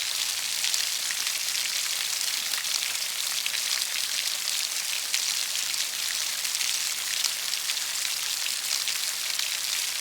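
Steady rainfall, a dense even hiss of drops with many small patters on a surface.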